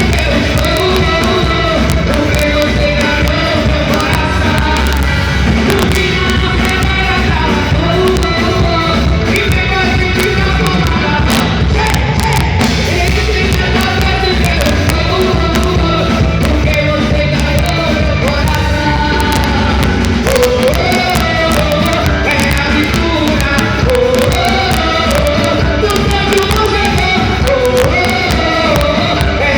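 Amplified band music with a singer over heavy bass and a drum beat.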